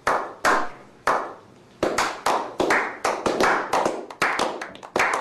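A small group of people clapping: a few slow, separate claps at first, then picking up speed into faster, overlapping applause from about two seconds in.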